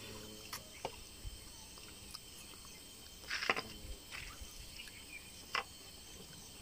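Faint, steady chirring of insects, with a few brief soft noises from people eating with their hands; the clearest is about three and a half seconds in.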